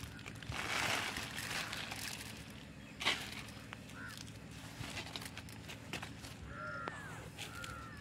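Okra leaves rustling and footsteps in the grass as someone pushes through an okra patch, with a steady low hum underneath. A bird gives a few short calls near the end.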